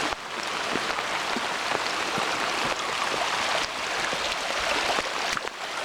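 Flood-swollen creek rushing, a steady hiss of flowing water with a few faint knocks.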